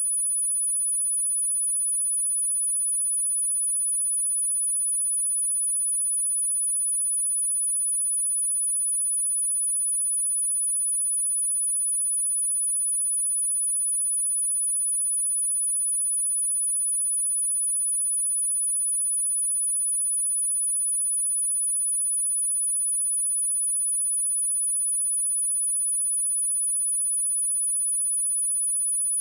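A steady, unbroken 9908 Hz pure sine tone, a high-pitched whistle-like beep used as a speaker test tone and for clearing water and dust from speakers.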